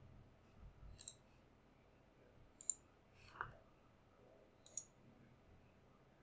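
A few faint computer mouse clicks, spaced a second or two apart, over near silence.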